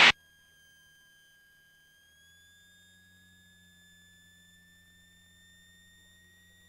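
Faint, steady electrical whine of several high tones over a low hum, on an aircraft intercom feed with no one talking. The whine slowly rises a little in pitch, and the hum grows slightly stronger about two seconds in.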